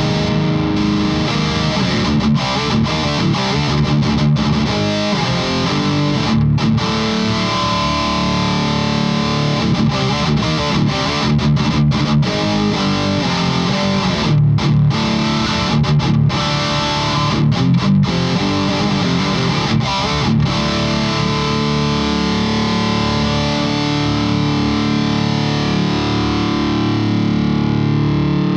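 Electric guitar played through a Fortin overdrive pedal into a mic'd guitar amp, giving a distorted tone. It plays riffs with a few short stops, then ends on a held chord that rings out over the last few seconds.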